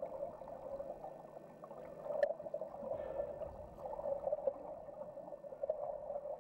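River current heard underwater: a steady, dull rushing and gurgling that swells and fades slightly, with a faint click about two seconds in.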